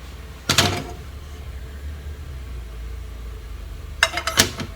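Cookware being handled at the stove: a sharp clatter about half a second in and a quick run of clicks and knocks near the end, over a steady low hum.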